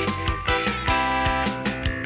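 Background music with a steady, quick beat of about five strokes a second under sustained notes.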